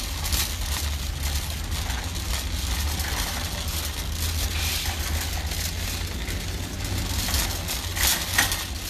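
Shopping cart rolling over a concrete store floor: a steady low rumble from the wheels, with a few sharp rattles of the wire basket near the end.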